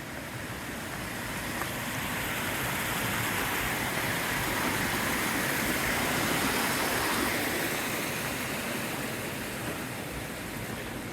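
Steady rushing of running water, swelling over several seconds and then easing off.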